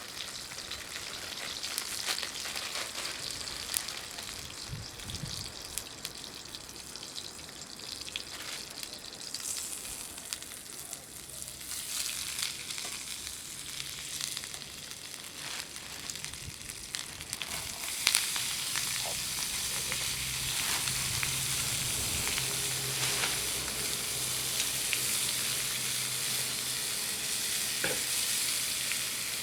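Vegetables stir-frying in a pan over a campfire: a steady sizzle broken by frequent short clicks and scrapes as they are stirred. About eighteen seconds in there is a sharp knock, and after it the sizzle is louder.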